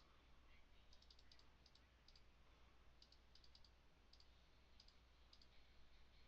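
Faint computer mouse clicks, about fifteen, many in quick pairs, over a low steady electrical hum.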